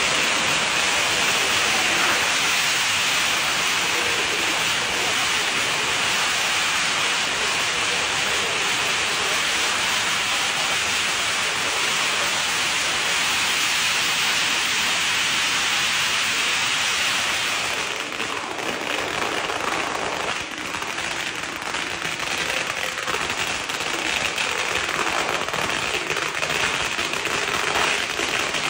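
A long string of Chinese firecrackers going off in a dense, continuous rattle of bangs. About two-thirds of the way through, the rattle thins into more separate pops, then thickens again near the end.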